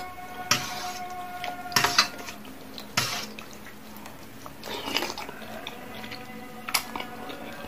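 Close-up eating sounds: spicy instant noodles slurped and chewed, with a metal fork and spoon clinking several times against a stainless-steel tray.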